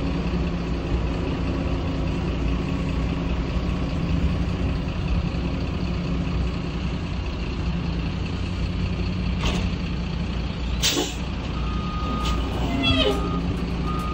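Mobile crane's diesel engine running steadily under load as it holds a suspended marine engine. About 11 s in there is a short, sharp air hiss, and near the end a few short high beeps.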